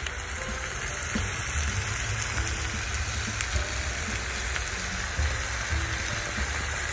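Turkey pieces in a spicy marinade sizzling in a hot pan: a steady frying hiss with small crackles, over background music's bass.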